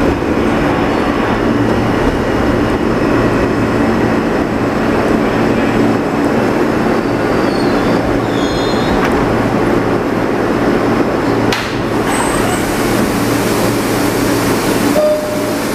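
R160 New York City Subway train running along the track: a steady rumble of wheels on rail with a low hum, faint brief squeals, and one sharp click about twelve seconds in.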